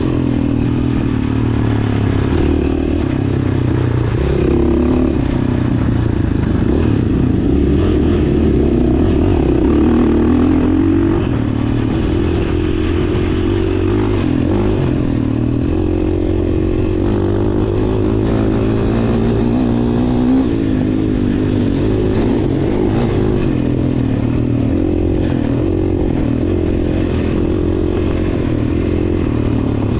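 GasGas dirt bike engine running hard as it is ridden along a dirt trail, its pitch rising and falling over and over with the throttle.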